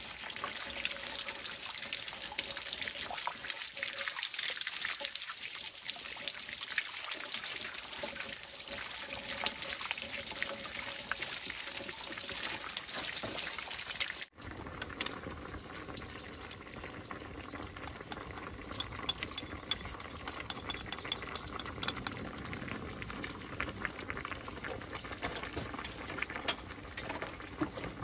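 Water: a steady rushing hiss for about the first half, then, after an abrupt cut, a quieter bed of bubbling with scattered crackles and pops.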